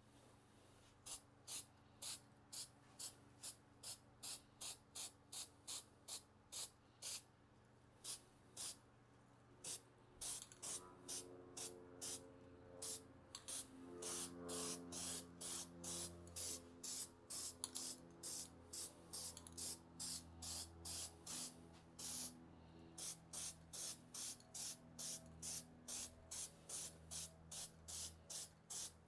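Aerosol spray paint can sprayed in short, quick bursts, about two a second, with a few brief pauses.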